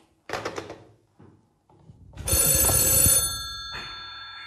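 Desk telephone's bell ringing: one ring of about a second starting a little after two seconds in, made of several steady high tones that die away slowly.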